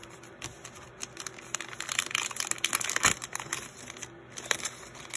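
A foil blind-bag pouch crinkling as it is handled, a dense run of crackles that is loudest in the middle.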